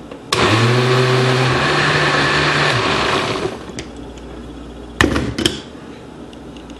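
Blender running for about three seconds, blending canned whole tomatoes with spices. Its motor pitch steps up partway through, and then it winds down and stops. Two sharp knocks follow about five seconds in.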